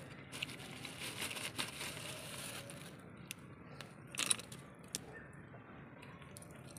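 Handling noise: a plastic bag crinkling as a hand rummages through pieces of cut wood, followed by scattered sharp clicks and a louder knock about four seconds in.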